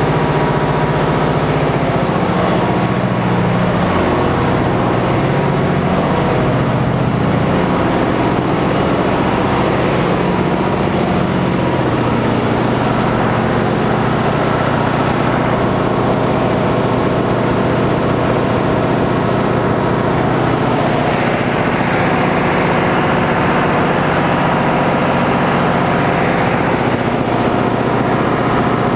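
Large Caterpillar diesel generator sets running steadily, a loud, dense drone made of many engine tones with a thin high whine above them. The low tones shift a little about halfway through.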